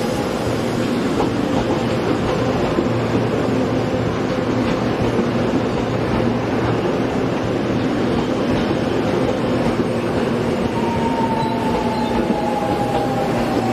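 Seoul Subway Line 4 341000-series electric train running past close by at low speed as it pulls into the station, with a steady rumble and hum from its wheels and running gear. From about eleven seconds in, a whine falls slowly in pitch as the train slows toward its stop.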